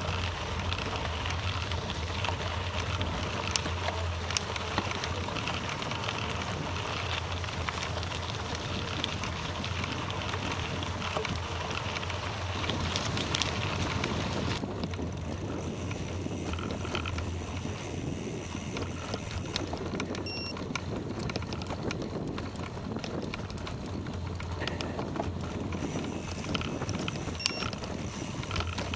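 Wind buffeting the microphone over the steady hiss and crunch of bicycle tyres rolling on a gravel road; the hiss thins about halfway through.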